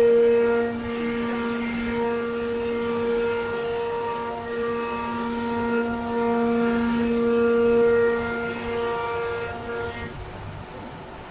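Whine of a CNC wood router's 9 kW HSD air-cooled spindle as it cuts a wooden door panel. The steady pitch has overtones that swell and fade with the cutting load, and it dies away about a second before the end.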